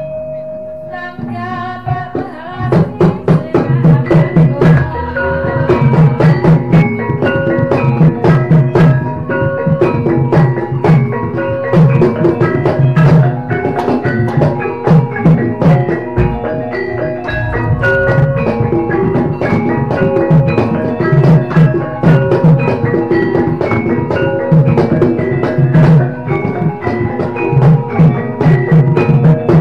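Javanese gamelan music accompanying dance: struck metallophones play a steady melody over rhythmic drum patterns, building up in loudness about two seconds in.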